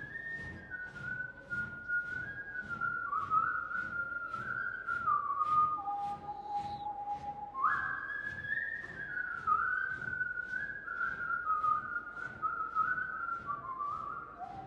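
A person whistling a slow melody, the notes stepping up and down with short slides between them and dropping low about six seconds in and near the end. Under it is a steady soft beat about twice a second.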